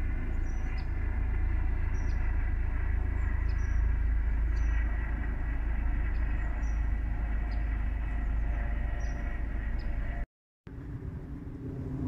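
Outdoor ambience by a reedy pond: a steady low rumble and hiss with small birds chirping, short high calls about once a second. It cuts off abruptly a little before the end, and a quieter rumble follows.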